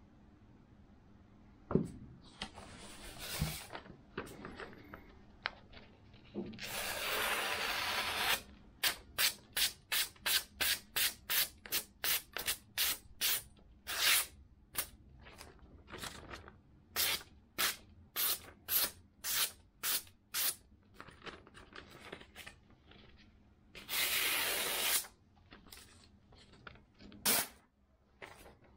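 Freshly sharpened kitchen knife slicing through a hand-held glossy magazine page in a paper-cutting sharpness test. Each cut is a short papery hiss, coming about twice a second through the middle stretch, with a few longer hissing strokes before and after.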